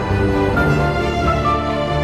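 Background music of sustained, held notes laid over the video, with a change of notes about half a second in.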